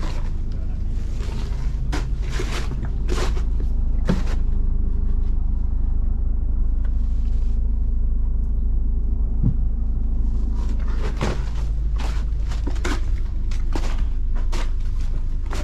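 An engine running steadily with a low rumble, with scattered knocks and clatters over it.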